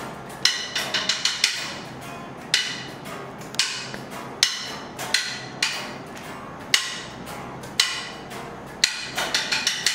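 A pair of wooden drumsticks clicked together to keep a beat, about one strike a second, with quick runs of strikes about a second in and near the end. Soft unamplified electric guitar and bass play underneath.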